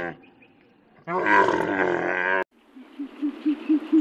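A dromedary camel gives one drawn-out call of a little over a second, wavering in pitch, that breaks off sharply. Near the end a small owl starts a quick series of low hoots, about four a second.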